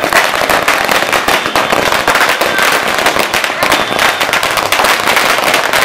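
A string of firecrackers bursting on and on in rapid, sharp cracks, many a second, with no pause.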